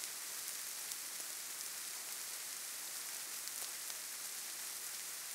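Steady soft hiss with faint scattered ticks, an even background noise bed.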